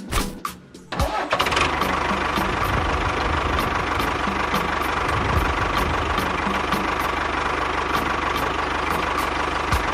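A small engine starts about a second in, after a few clicks, and then runs steadily with a fast, even beat.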